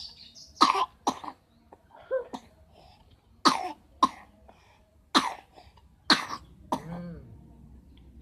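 A person coughing repeatedly: about eight short, sharp coughs roughly a second apart, some in quick pairs, the cough of someone sick with a cough.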